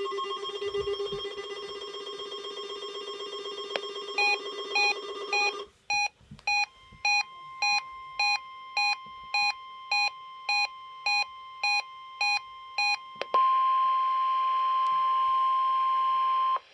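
NOAA Weather Radio alert sequence for a weekly test: a steady buzzing tone, then a weather-radio receiver's short alert beeps repeating about 1.6 times a second, then the steady warning alarm tone held for about three seconds and cutting off sharply.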